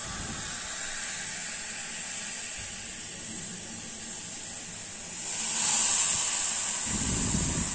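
Chai poured into a heated clay pot, sizzling and hissing as it boils up and froths over the hot clay. The hiss grows louder about five seconds in.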